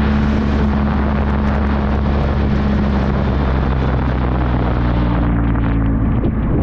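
Motorcycle engine running steadily at cruising speed under heavy wind rush on the microphone. The wind noise and engine note ease near the end.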